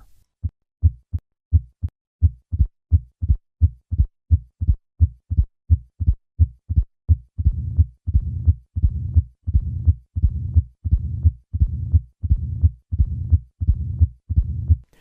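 Heart sounds of mitral stenosis at about 85 beats a minute: evenly spaced S1 and S2 beats that are nearly equal in spacing. About halfway through, the low-pitched diastolic rumble of mitral stenosis fills the gaps between beats, which makes it easy to mistake for a systolic murmur.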